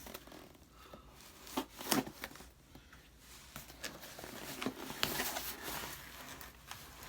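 Packaging rustling and crinkling as a shipping box is unpacked, with a few short, sharp taps scattered through it.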